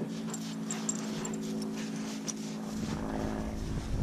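Black German Shepherd running through deep snow, its paws crunching and scuffing, with a steady low hum underneath. Wind rumbles on the microphone from about three seconds in.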